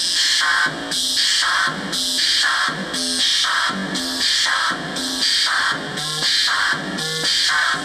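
Homemade noise and rhythm synthesizer, built from CD4017 decade counters driving CD4046 PLL oscillators, playing a repeating sequenced pattern: about one noisy, buzzy note a second, each with a low tone whose pitch changes from note to note.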